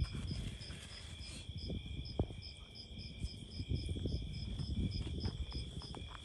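Crickets chirping: one steady high trill with another chirping in a quick regular pulse, about five times a second. Under them, low rustling and a few knocks of movement close to the microphone.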